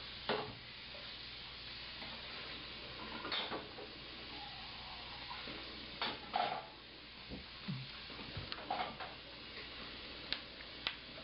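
Cutlery clinking against dishes during a meal: a scattered handful of short clinks over steady background hiss.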